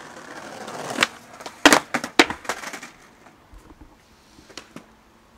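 Skateboard wheels rolling over brick paving, getting louder, then a sharp pop about a second in followed by several loud slaps and clatter of the board that die out by about three seconds.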